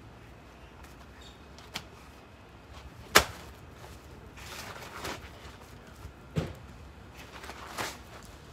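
A folded rubber roofing sheet handled on a plastic ground tarp: a sharp slap about three seconds in as it is set down, then rustling and a few lighter knocks as it is unfolded.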